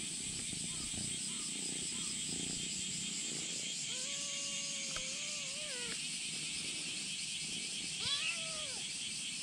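Ginger kitten meowing: two drawn-out meows back to back about four seconds in, and one shorter, arching meow about eight seconds in. Insects buzz steadily throughout.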